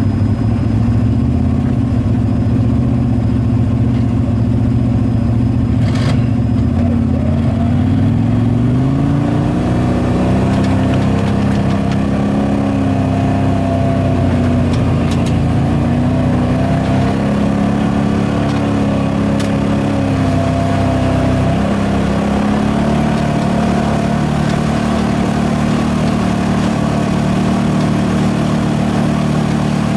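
Side-by-side UTV engine running under way on a trail. It holds a steady low drone for the first several seconds, climbs in pitch about eight seconds in, then rises and falls with the throttle. A single sharp click sounds about six seconds in.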